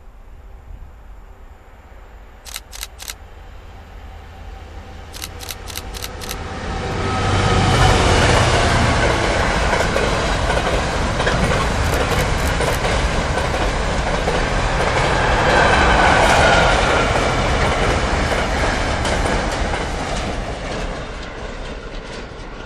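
Class 66 freight locomotive's two-stroke V12 diesel passing at speed, loudest about seven to eight seconds in, followed by the steady rumble and clatter of a long rake of loaded box wagons rolling over the track. The sound fades near the end as the train moves away.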